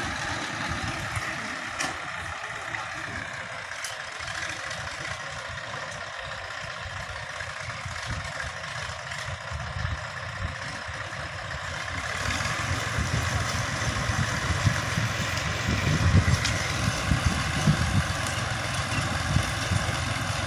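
Diesel tractor engine running steadily as it pulls a fertilizer-applying implement through dry soil. It grows louder from about twelve seconds in, as the tractor comes closer.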